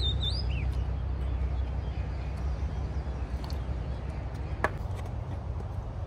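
Steady low outdoor rumble. A bird gives a short whistled call in the first half-second, and there is a single light knock a little past the middle.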